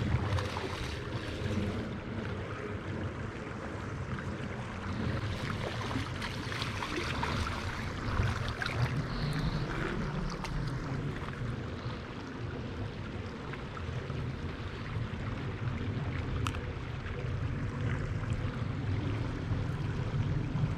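Steady rush of a shallow creek running over a gravel riffle, with a low rumble under it.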